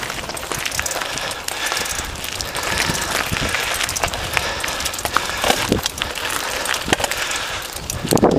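Mountain bike riding uphill over loose gravel and stones: the tyres crunch and crackle on the stones with a dense run of small clicks and rattles from the bike.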